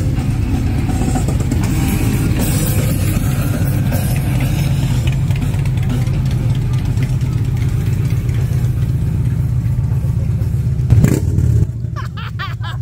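Several large touring motorcycles with fairings running close by at low revs, a steady low engine sound. A sharp clack comes near the end, after which the engine sound drops.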